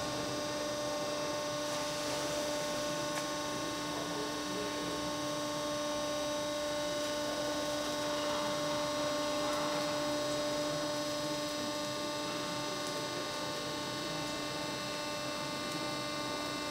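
Steady machine hum with several fixed tones from the WLK15 shredder's electric and hydraulic drive while its hinged front housing is slowly swung open.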